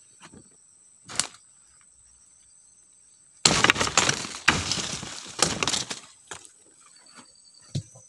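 Leafy tree branches rustling and twigs cracking as they are pulled and snapped by hand: one sharp crack about a second in, then a loud dense burst of crackling and rustling for about two and a half seconds, with a few smaller cracks near the end. A thin, steady high insect drone sounds underneath.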